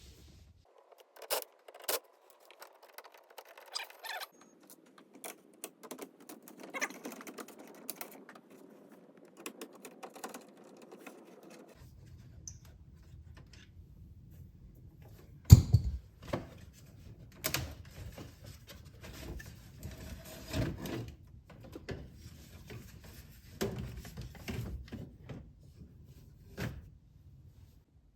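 Scattered clicks, knocks and rattles of hand tools working on the Torx screws that hold a car stereo in the dash, with one loud thump about fifteen seconds in.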